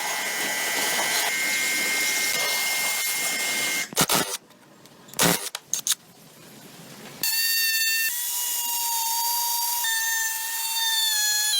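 Power tools at work. A dense, hissing tool noise runs for about four seconds, then comes a few sharp knocks, and from about seven seconds in a steady high-pitched motor whine.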